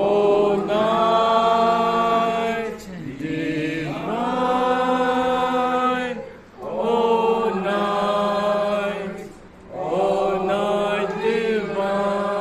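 A mixed group of men's and women's voices singing a Christmas carol together, in four long held phrases with a short break between each.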